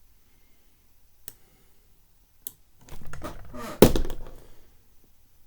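Two sharp clicks a second or so apart, then a stretch of handling noise that ends in one loud thump about four seconds in.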